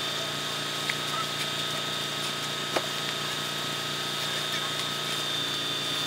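Concrete pump truck's engine running steadily at a constant speed, with a steady high whine over the drone. Two sharp clicks from the site tools, about one second and just under three seconds in.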